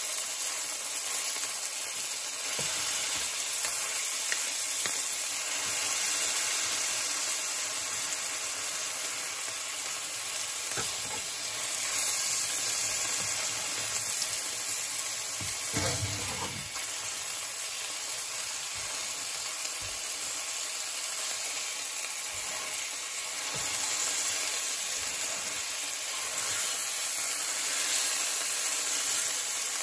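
Steak frying in garlic butter in a nonstick pan, just turned onto its second side: a steady sizzle, with occasional scrapes and knocks of a metal spatula and a wooden spatula against the pan, the strongest about sixteen seconds in.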